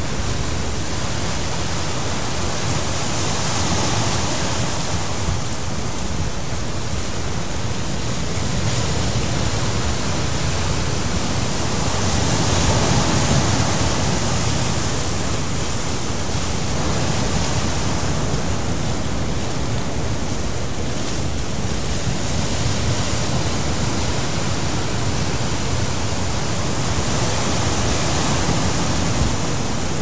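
Steady rushing of ocean surf breaking below the sea cliff, mixed with wind, swelling and easing every several seconds.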